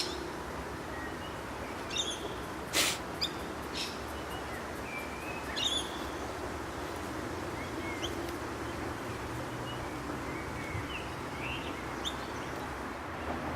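Small birds chirping now and then over a steady background hiss, with a few sharp clicks, the loudest about three seconds in.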